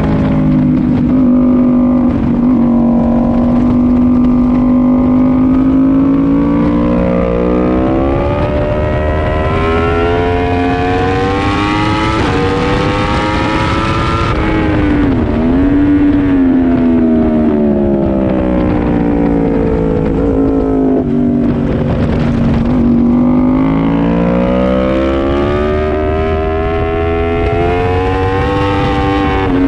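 Sport bike's inline-four engine heard from on board at track speed: it revs up hard to a peak on the straight about 14 seconds in, with wind rush rising alongside. Then it drops sharply as the rider brakes and shifts down for the corner. After a low stretch it revs up again out of the turn and falls off once more near the end.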